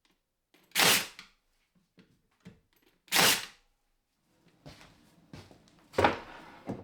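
Three loud knocks, about two and a half seconds apart, with light taps and clicks between them.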